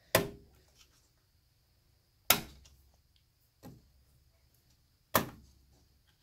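Plastic retention latch on a desktop motherboard's RAM slot being pressed to release a memory stick: sharp clicks, three loud ones a couple of seconds apart and a fainter one between the last two.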